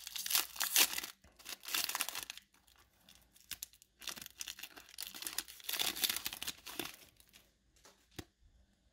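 Foil wrapper of a Pokémon trading-card booster pack being torn open and crinkled in the hands, in several loud rustling bursts. It goes much quieter near the end, with one light click as the cards are handled.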